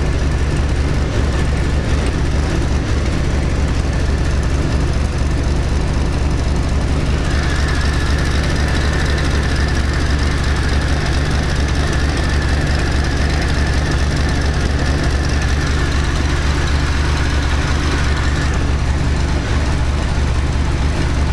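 GM 3.4-litre SFI V6 idling rough while cold, the fault the owner suspects comes from a wire missed when he cut down the wiring harness. A steady hiss joins for about ten seconds in the middle.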